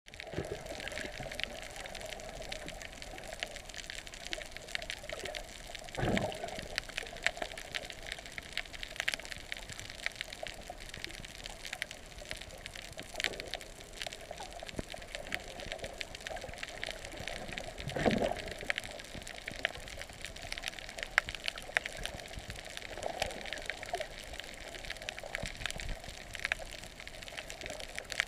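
Underwater ambience heard through a submerged camera: a muffled wash of water with a constant fine crackle of small clicks, and louder swells of moving water about six and eighteen seconds in.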